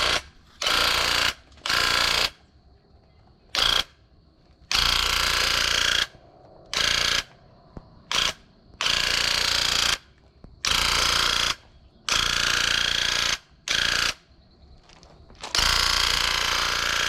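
Electric paint sprayer with a built-in pump, triggered in about a dozen bursts lasting from a fraction of a second to over a second: each a loud spraying hiss with the pump's mechanical rattle. A faint steady high whine carries on between bursts.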